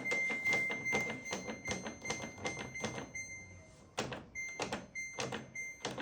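Electronic tone from a Samsung washing machine: a steady high beep that holds for about three seconds, then breaks into short repeated beeps, over a quick run of clicks and knocks.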